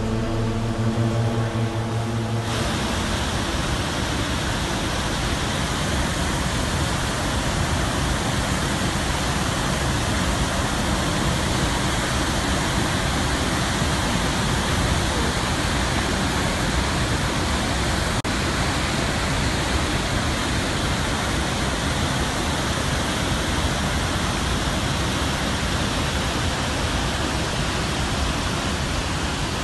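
Steady, loud rushing roar of a large waterfall. A held musical chord cuts off about two seconds in, leaving only the water.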